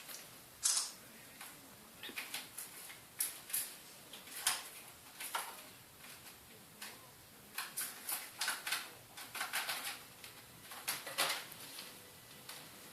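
A kitten playing with a toy mouse on a cat scratching tree makes irregular scratches, taps and rustles, in quick clusters with short pauses between them.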